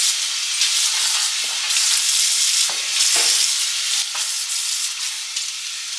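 Scrub brush scrubbing wet denim jeans to lift out paint stains: a steady hiss that swells and eases.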